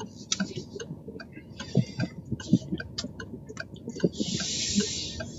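Scattered, irregular clicks and ticks inside a car's cabin as it slows for a right turn, over a faint low hum, with a short hiss about four seconds in.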